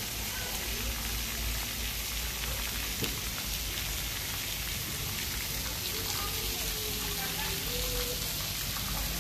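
Water jets from splash-pool fountains spraying and falling onto the pool, making a steady, rain-like hiss.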